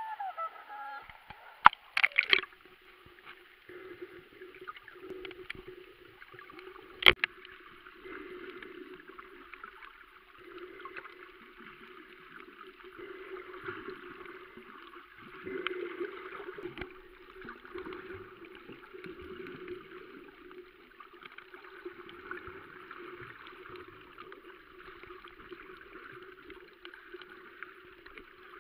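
Muffled underwater sound picked up by a camera in a waterproof housing while snorkeling: a steady wash of water noise with a few sharp knocks about two seconds in and again about seven seconds in.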